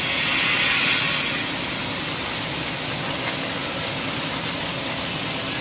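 Steady running noise of a metal-fabrication factory hall's machinery: an even hiss with a faint hum underneath.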